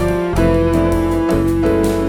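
Instrumental jazz band playing: held keyboard notes over a steady bass line.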